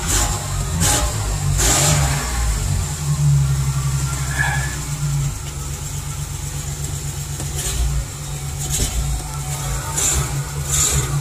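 A 2008 Chevy Express 1500's 4.3-litre V6 running in reverse gear while the parking brake holds the van, testing the newly fitted parking brake. The engine note strengthens for a couple of seconds about three seconds in, and a few short rustling noises sound over it.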